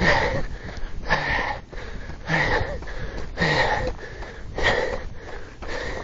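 A runner's heavy, rhythmic breathing close to the microphone, one hard breath about every second while running uphill through snow.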